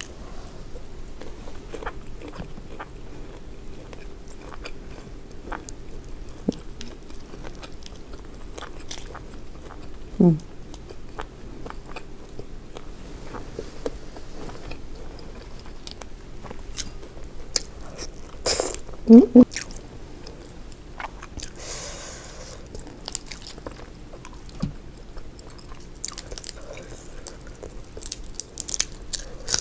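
Close-miked eating of boiled seafood, shrimp heads among it: scattered bites, chewing and crunching. A short vocal sound is heard about ten seconds in and again near nineteen seconds.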